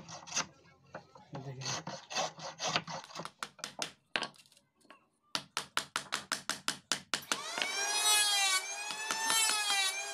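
A wooden-bodied hand plane shaving a strip of wood in short scraping strokes, then, after a pause, a hammer rapidly tapping a chisel into wood, about five blows a second for two seconds. Over the last few seconds a high squeal wavers up and down in pitch.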